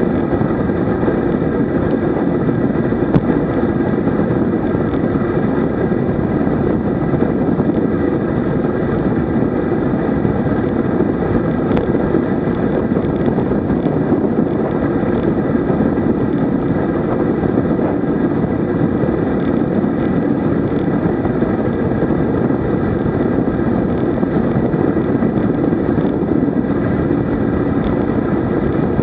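Steady wind rushing over the microphone of a road bicycle descending at about 53 km/h, mixed with the tyres' rumble on asphalt.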